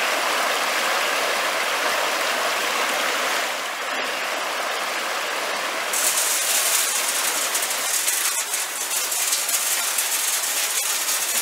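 Water rushing through the chute and churning the horizontal wooden wheel of a traditional water mill. About three and a half seconds in it gives way to the mill room, and from about six seconds in grain poured into the hopper and trickling onto the turning millstone makes a bright hissing rattle.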